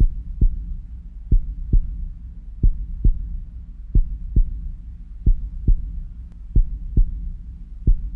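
Heartbeat sound effect: a slow, regular double thump, lub-dub, about once every 1.3 seconds, over a low steady hum.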